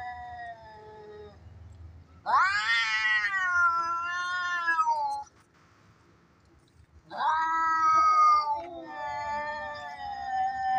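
Cats yowling as in a cat fight: a low drawn-out yowl at first, then a loud rising howl about two seconds in that lasts about three seconds. After a short pause a second loud yowl starts about seven seconds in and trails into a lower, steady moan.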